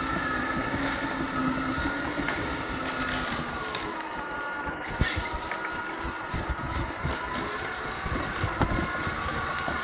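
Tamiya Knight Hauler 1/14 RC tractor truck driving with its semi trailer: the electric drive runs with a whine that slowly dips and rises in pitch as the speed changes, over the rolling rumble and rattle of the rig, with scattered sharp clicks, the loudest about five seconds in.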